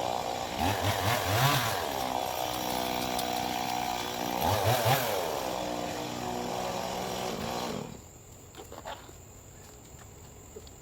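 Two-stroke chainsaw running, revved up twice and settling back between revs, then shut off about eight seconds in.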